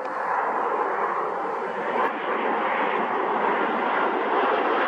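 Jet engines of a twin-engine Boeing 787 Dreamliner on final approach with its landing gear down, a loud steady rushing roar that grows slightly as the airliner comes closer.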